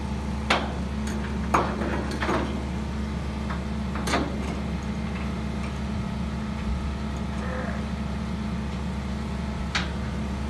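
Excavator's diesel engine idling steadily, with a handful of sharp metal clanks as a bolt and spud wrench are worked on the steel bunker and tube flange.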